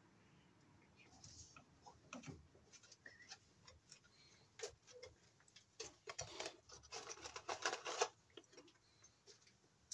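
Faint scattered clicks, taps and rustles of a person handling the cable and moving about, irregular rather than a steady rhythm, with a busier, louder run of clicks about six to eight seconds in.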